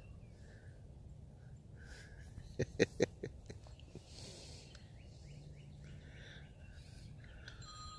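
Faint outdoor background with a few bird chirps, broken by a quick cluster of sharp clicks about two and a half to three seconds in. Near the end a phone starts ringing with a steady electronic ringtone.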